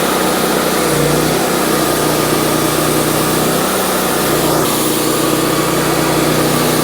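Wood-Mizer LT40 band sawmill's 26.5-horsepower engine running steadily under load as the sawhead feeds forward and the band blade cuts through a log.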